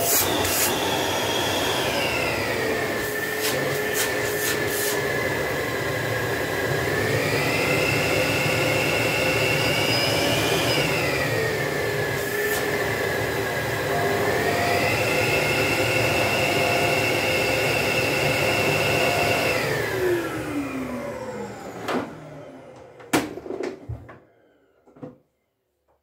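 Samsung VW17H9090HC (VW9000) bagless canister vacuum cleaner running, its motor whine dropping in pitch, rising, dropping and rising again. About twenty seconds in it is switched off and winds down with a falling whine over a few seconds, followed by a few light clicks.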